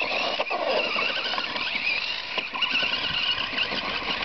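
Radio-controlled buggy driving on gravel, its motor whining high and wavering in pitch as the throttle changes, with a few short knocks from the wheels over stones.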